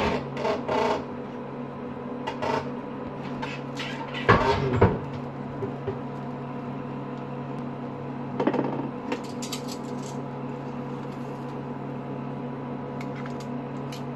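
Kitchenware clatter: a few short knocks and clinks of a pan and a ceramic plate being handled, the loudest about four seconds in, over a steady low hum.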